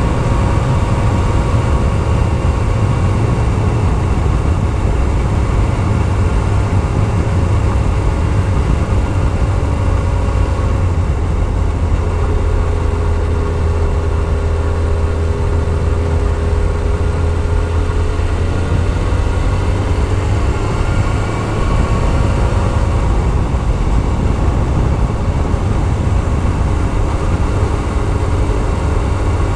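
Yamaha YZF-R6S sport bike's inline-four engine running at road speed, its pitch sagging slightly partway through and climbing back, over a steady loud low rumble of wind on the microphone.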